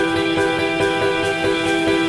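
Background music with sustained instrumental tones over a steady light beat.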